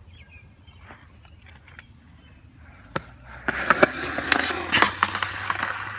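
Skateboard wheels rolling and the board clattering on concrete as the rider falls. A sharp clack about halfway through, then about two seconds of louder rough rolling noise with several hard knocks.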